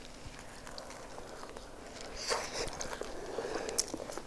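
Two people biting into and chewing slices of pizza topped with fries and cheese: quiet mouth noises with small wet clicks.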